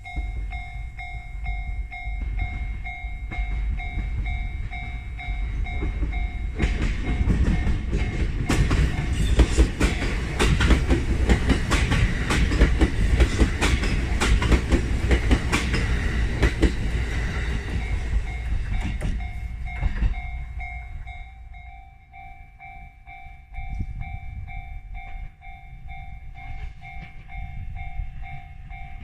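Level-crossing warning bell ringing in steady repeated dings. For about fourteen seconds an E131 series electric train passes close by, its wheels clicking over the rails, and the passing train drowns out the bell, which rings on again once the train has gone.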